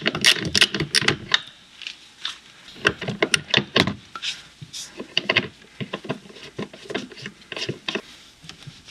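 Ratchet wrench clicking in short, quick runs as 10 mm bolts are backed out, with several separate runs of clicks.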